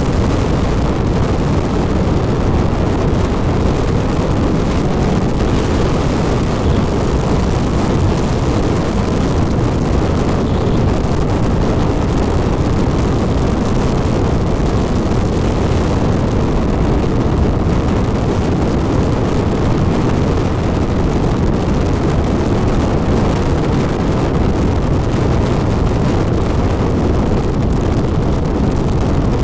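Hero XPulse 200 motorcycle running steadily at cruising speed, mostly buried under a loud, unbroken rush of riding wind on the microphone.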